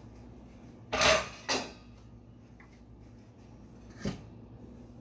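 Kitchen handling noise: two short rubbing, sliding sounds close together about a second in, and a fainter knock near the end.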